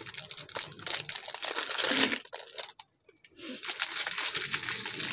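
Plastic biscuit packet crinkling and tearing, with crackly snaps of biscuits being broken up by hand. It comes in two stretches with a short pause about three seconds in.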